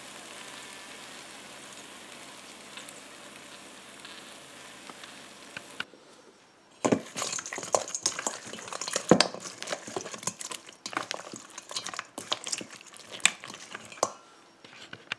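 A steady sizzling hiss with a faint low hum over air-fried chicken wings in the basket. After a short lull, a silicone spatula tosses the wings in BBQ sauce in a stainless steel bowl: irregular wet slaps, scrapes and clicks against the metal, louder than the hiss.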